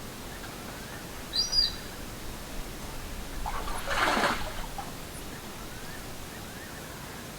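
Outdoor bush ambience: a steady hiss with a short, high bird chirp about a second and a half in and faint rising calls here and there. A brief rush of noise comes about four seconds in.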